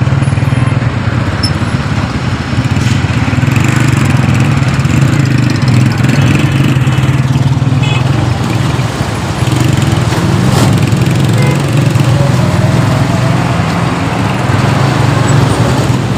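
Small motorcycle engine running steadily while riding through heavy road traffic, with the hum of surrounding traffic.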